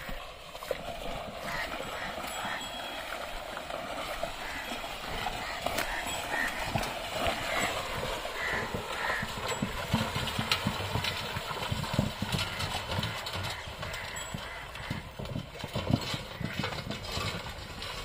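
A pair of Ongole bulls hauling a wooden bullock cart through a shallow river: irregular splashing and knocking of hooves and cart wheels in the water.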